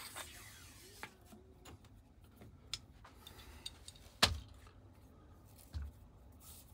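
A bore snake swishes briefly as it is pulled out of an AR-15 barrel. Scattered light clicks and taps follow as the rifle's upper receiver is handled, with one sharp knock about four seconds in and a dull thump near six seconds.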